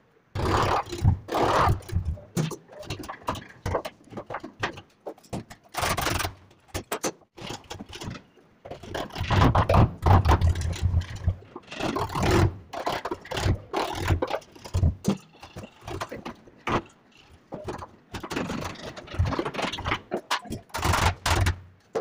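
Wood chisel being struck over and over to cut a lock mortise in the edge of a wooden door: irregular sharp knocks, with scraping as the chisel pares and prises out wood between the blows.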